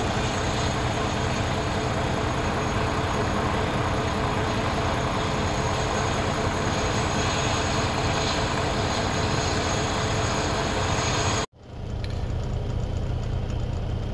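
Steady idling car engine noise heard from inside the cabin, with a hiss over it. About eleven seconds in it drops out for an instant at a cut, and a lower, steady hum carries on.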